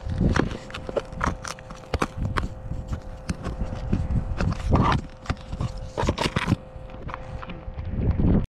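Handling noise right at the camera: an irregular run of knocks, taps and rubbing as a hand grips and moves it and brushes the snow around it, over a faint steady tone. The sound cuts off abruptly near the end.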